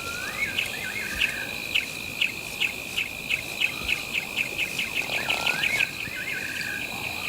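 Wild bird and insect ambience: a steady, high insect drone and a run of short chirps that come faster and faster, while a bird twice gives a rising, swooping whistle followed by a buzzy trill.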